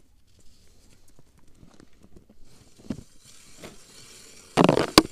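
Hands handling a clear plastic tub of groundbait with a plastic feeder in it: scattered light knocks and rustles, then near the end a short loud plastic clatter and one sharp snap.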